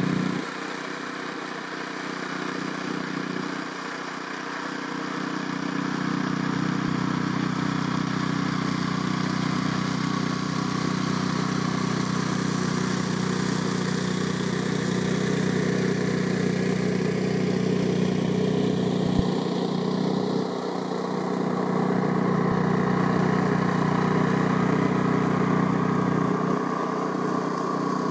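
Freight train running past, a steady low hum over a rushing noise that grows louder about six seconds in, with a single sharp click near the middle.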